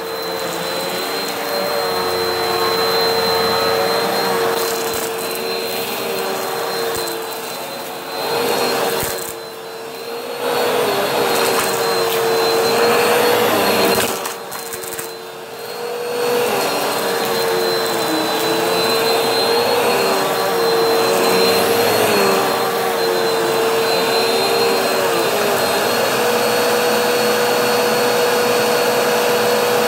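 Vacuum cleaner running with a steady, loud motor whine over a rush of air. Its pitch wobbles slightly, and the level dips briefly twice, about ten and about fifteen seconds in.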